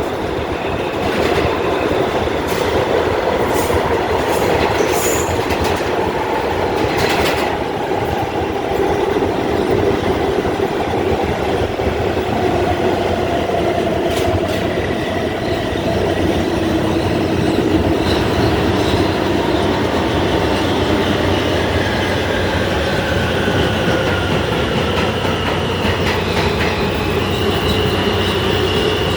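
New York City subway F train running at speed, heard on board: a steady loud rumble of wheels on rail with a few sharp clicks over the rail joints and motor whine gliding up and down in pitch. A high, steady wheel squeal sets in near the end.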